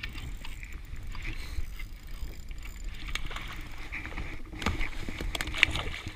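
Water lapping against the hull of an anchored jet ski, with a few sharp splashes near the end as a hooked kahawai thrashes at the surface beside the hull.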